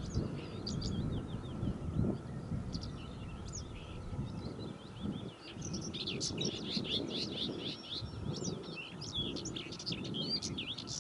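Small birds chirping and singing in many quick overlapping notes, busier in the second half, over a low rumbling background noise.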